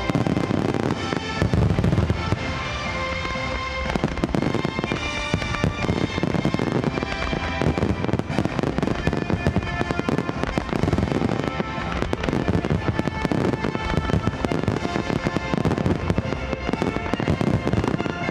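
A dense barrage of fireworks bursting in rapid succession: aerial shells and starmines, their booms and crackle coming almost without pause from about four seconds in, with music playing underneath.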